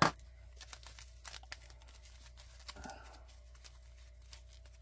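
Packaging being cut and torn open: a sharp click right at the start, scattered faint clicks, and a short rustle of wrapping about three seconds in.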